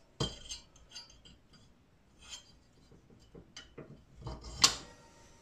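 Light, scattered clinks and knocks of small machined metal parts, a model steam engine's cylinder block and valve plate, being handled and fitted together by hand. The loudest knock comes near the end.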